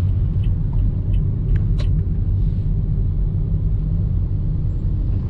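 Steady low rumble of a Toyota Vios sedan in motion, engine and road noise heard from inside the cabin.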